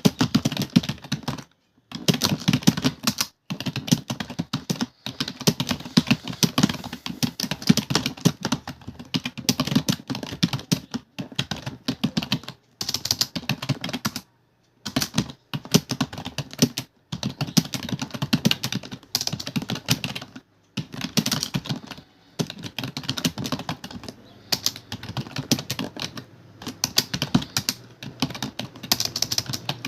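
Fast continuous typing on a computer keyboard, dense runs of key clicks broken by brief pauses every few seconds.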